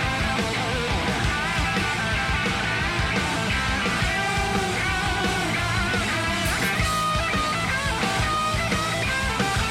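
Hard rock music: a full band with electric guitars and drums playing continuously.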